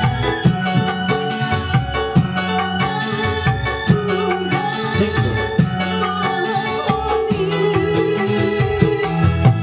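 Live dangdut band music: hand drums beat a quick, steady rhythm under sustained electronic keyboard organ chords, with a woman singing a wavering melody into a microphone.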